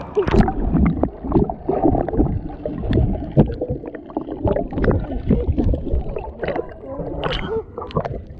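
Pool water sloshing and gurgling around the camera, with irregular knocks and thumps throughout.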